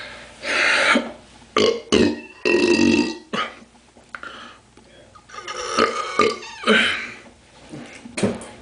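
A man belching repeatedly: a run of loud burps with short pauses between them, one longer drawn-out belch about three seconds in and another group a little after the middle.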